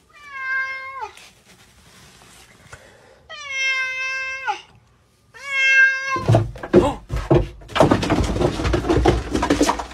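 Domestic cat meowing three times, each call long, held on one pitch and falling at the end. After about six seconds comes a loud, harsh noise lasting several seconds, louder than the meows.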